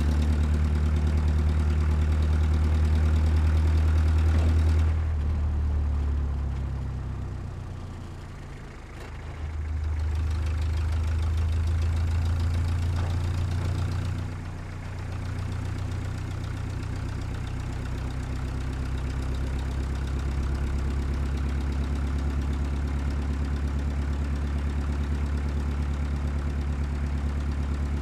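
Heavy truck engine running with a deep, steady low note. It falls away about seven to nine seconds in, comes back strongly at ten seconds, dips briefly around fourteen seconds, then runs on evenly.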